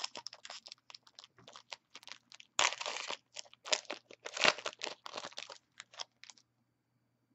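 Foil trading-card pack wrapper crinkling and tearing open in a quick series of sharp crackles, loudest about two and a half and four and a half seconds in. It stops abruptly a little over six seconds in.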